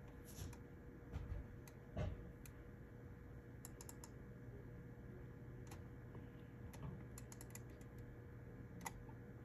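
Typing on a computer keyboard: faint scattered key clicks, with short quick runs of keystrokes about four seconds in and again about seven seconds in. Two duller knocks in the first two seconds are the loudest sounds.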